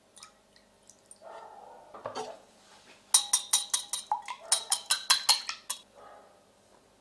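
Wire whisk beating egg and milk in a ceramic bowl, its wires clicking fast and sharply against the bowl for nearly three seconds, the loudest sound here. Before it, a short soft splash of milk poured into the bowl.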